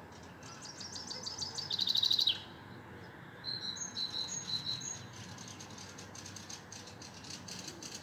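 Songbirds singing: one bird gives a fast run of high notes that slips slightly downward and speeds into a trill, ending with a flourish about two seconds in; then a phrase of repeated notes alternating between a higher and a lower pitch follows from about three and a half to five seconds.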